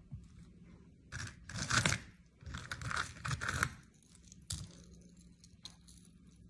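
Handling noise of jewellery: scratchy rustling as earrings are picked out of a basket and a pair of large silver earrings is pulled apart, in two bursts in the first half, followed by a few light metal clicks.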